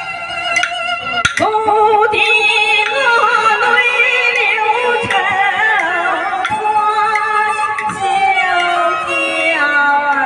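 A woman sings Chinese opera in the xiaosheng (young male) role with strong vibrato, amplified through a handheld microphone. She is accompanied by Chinese bowed fiddles and percussion, and a sharp clack sounds about a second and a half in, just before the long sung phrase.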